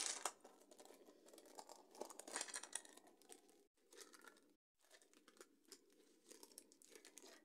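Light crinkling and rustling of a plastic packet of paper embellishments and card stock being handled, with a louder crinkle at the start and another about two seconds in.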